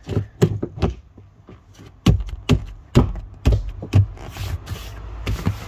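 Sharp knocks and taps as a rear headrest's metal posts are pushed and worked into the holes of a leather rear seat back. A few quick taps come first, then from about two seconds in a run of harder knocks, about two a second.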